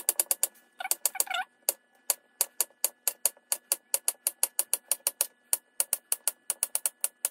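Kitchen knife slicing a banana into rounds on a wooden chopping board: a rapid, even series of sharp taps as the blade hits the board, about five or six a second.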